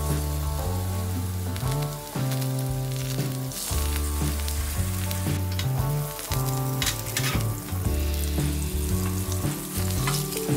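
Eggplant strips frying in hot oil in a nonstick pan: a steady sizzle with a few louder spattering pops, under background music with a moving bass line.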